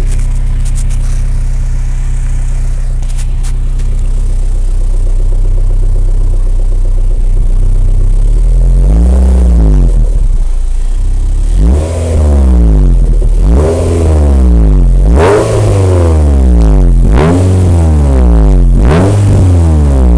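MG TF's K-series four-cylinder engine, breathing through an aftermarket Scorpion exhaust with a de-cat pipe and Toyosport manifold, idling steadily, then blipped repeatedly from about eight seconds in: seven or eight sharp revs, each rising and falling, about one every second and a half.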